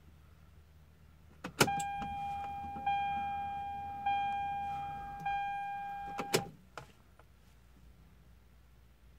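Ignition switched on with a click, setting off the 1997 Toyota Supra's dashboard warning chime: a steady ding struck four times about a second apart. After about five seconds the chime stops as the key is turned back off with a couple of clicks.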